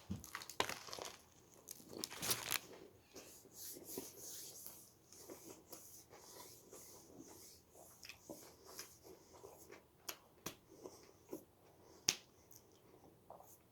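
A person biting into and chewing a sub sandwich: faint, irregular chewing with mouth clicks and soft rustles, and one sharper click about twelve seconds in.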